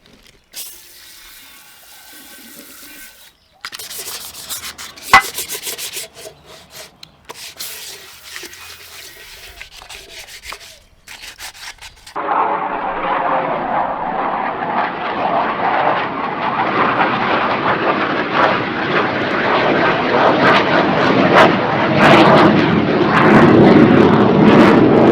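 Military jet passing overhead: loud jet noise starting abruptly about halfway in and building toward the end. Before it, scattered workshop clicks and scraping with one sharp knock.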